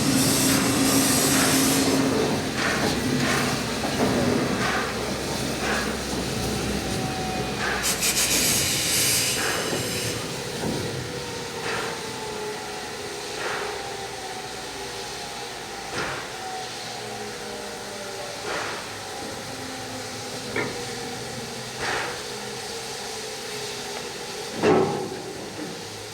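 Steam locomotive 3801, a 4-6-2 Pacific, letting off loud hissing steam at the start and again about eight seconds in. Sharp metallic knocks come every second or two, with the heaviest one near the end, and a faint tone slowly falls in pitch through the middle.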